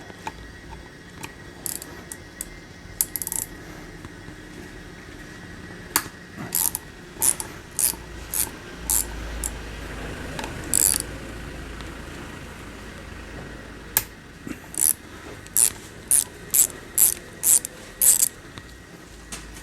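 Hand ratchet wrench clicking in short strokes, in two runs of about two strokes a second, as the fasteners holding the transmission control unit to the CVT valve body are undone.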